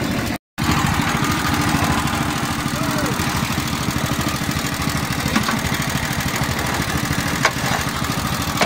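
The small engine of a concrete block-making machine running steadily with a fast vibrating rattle. A couple of sharp clicks about five and seven and a half seconds in.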